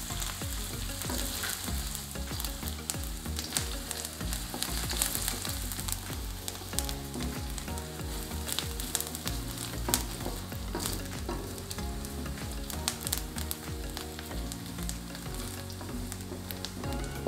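Chopped onion sizzling in hot oil in a wok while being stirred with a silicone spatula, with scattered clicks and scrapes of the spatula against the pan.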